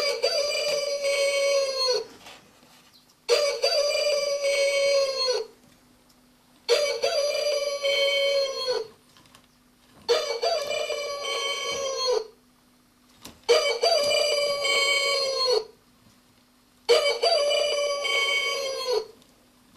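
1980s novelty chicken alarm clock sounding its alarm, an electronic rooster crow played through a small speaker. The crow repeats six times, each about two seconds long and falling in pitch at its end, with a gap of a second or so between. A faint steady hum runs underneath.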